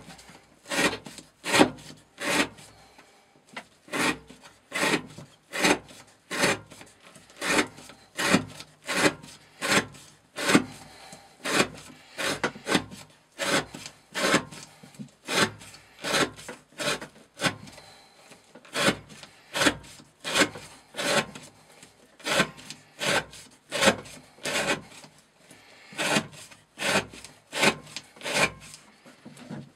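Glock FM 78 knife blade shaving down a square wooden stick in a steady run of scraping strokes, about one and a half a second, each stroke curling off a shaving. These are the counted cuts of an edge-retention test on the freshly sharpened 30° V edge.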